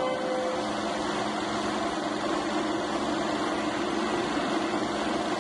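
Bell & Howell 16mm sound film projector running, a steady mechanical whir. The film's music stops about half a second in.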